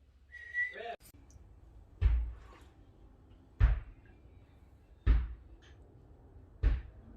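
Four dull, heavy thumps at an even pace, about a second and a half apart, after a brief high voice-like sound near the start.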